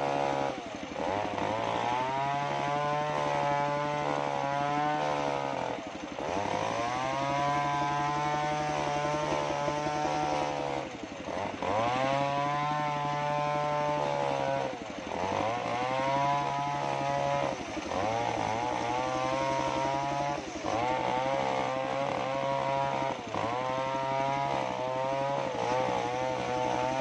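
Engine-driven circular sawmill ripping waru (sea hibiscus) planks: the big blade runs steadily, and its pitch sags and then climbs back every few seconds as the saw takes the load of each cut.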